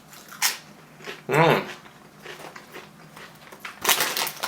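Crunchy crackling from chips being eaten and handled, a short crackle about half a second in and a denser cluster near the end, with a brief rising-and-falling voice-like sound in between.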